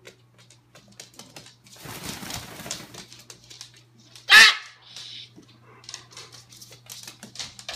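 A white cockatoo's claws clicking and scrabbling on a wooden floor. There is a rustling flurry about two seconds in, and one loud, short animal cry a little past the middle.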